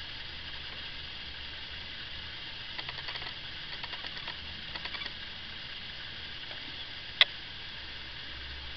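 Steady hiss of room and recording noise with a low hum, faint ticking now and then, and one sharp click about seven seconds in.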